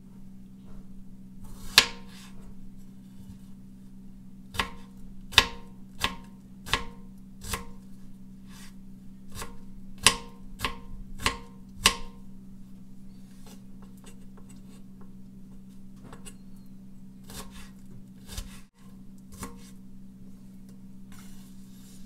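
Chef's knife slicing strawberries and knocking against a bamboo cutting board: about a dozen sharp, irregular chops in the first half, then a few fainter ones. A steady low hum runs underneath.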